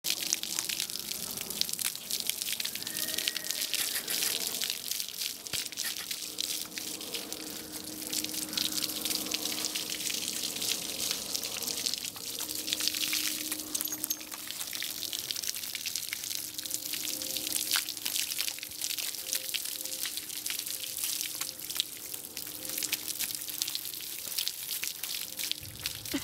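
Garden hose spraying water onto a horse's coat: a steady hiss of spray with splashing and dripping.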